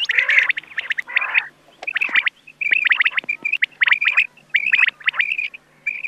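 Recorded rain quail calls of the kind used as a hunting lure: quick groups of short, sharp, high notes repeated over and over, with short gaps between the groups.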